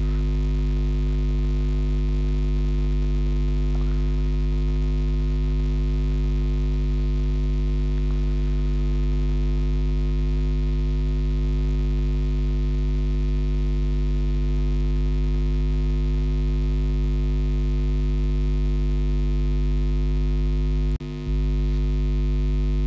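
Steady electrical mains hum, a low buzz with a row of overtones above it, picked up in the recording; it dips briefly about 21 seconds in.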